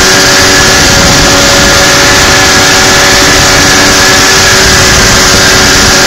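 1991 Polaris RXL 650 triple, a three-cylinder two-stroke snowmobile engine, running loud under way at a steady pitch as the sled cruises along a trail.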